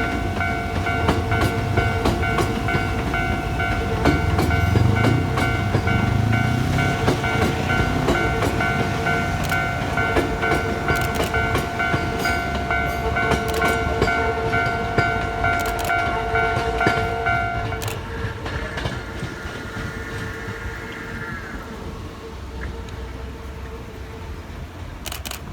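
Hankyu 3300-series ten-car electric train passing at a level crossing, its rumble swelling and its wheels clicking over the rail joints. A steady multi-tone crossing warning signal sounds alongside it and cuts off about three quarters of the way through, after which the train noise fades.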